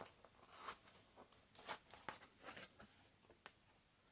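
Faint crackling, rustling and clicking of a product box being opened and its packaging handled, a quick run of short sounds that dies away about three and a half seconds in.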